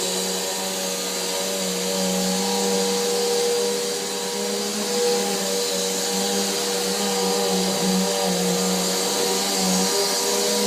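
Corded vacuum cleaner running steadily: a motor hum with a hiss of suction over it, its pitch wavering a little.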